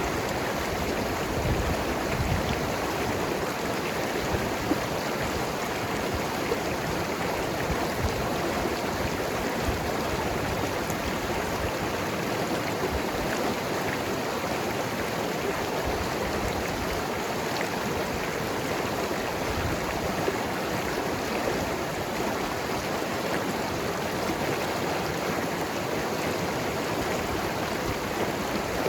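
Mountain river flowing and gurgling over rocks: a steady, dense rush of water with small splashes now and then.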